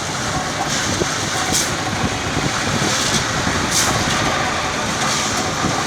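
A steady engine running, with short hissing sounds every second or two.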